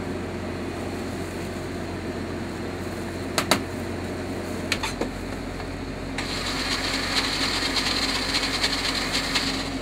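Countertop blender running for about three seconds, starting a little after the middle and stopping near the end, over a steady low background hum. A few sharp clicks come before it.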